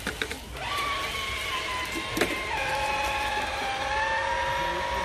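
Electric motor of an RC scale crawler truck whining steadily under load as it climbs a steep dirt bank. The pitch steps down a little past halfway, and there is one sharp click shortly before that.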